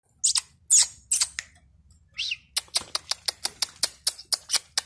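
Paroaria cardinal singing: three loud, sharp, high notes, a lower slurred note about two seconds in, then a quick run of about a dozen sharp notes, roughly five a second.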